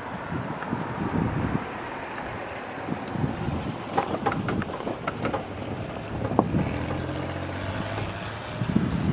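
Wind gusting across the microphone in low, irregular rumbles, with a cluster of sharp clicks about halfway through. A faint, steady low hum comes in during the second half.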